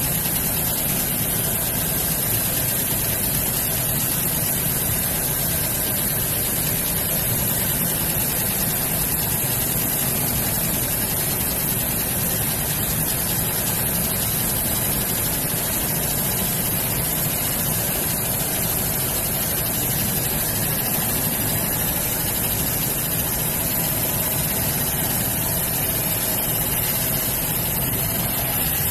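Steady, even machine noise from a galvo laser marking machine at work, a constant whooshing hiss with no rhythm or change.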